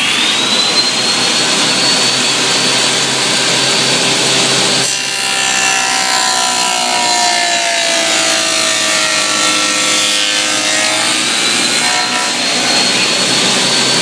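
Table saw spinning a dado blade stack, reaching full speed at the start and running with a steady high whine. About five seconds in, the dado bites into the clamped boards as the sled is pushed through, and the pitch sags under the load for several seconds. Near the end the whine climbs back up as the blade clears the cut.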